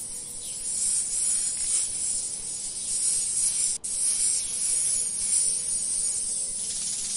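Steady, dense, high-pitched insect chorus, with a momentary dropout nearly four seconds in.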